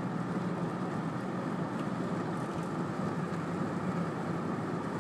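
Car driving at speed, heard from inside the cabin: a steady engine hum with road and tyre noise.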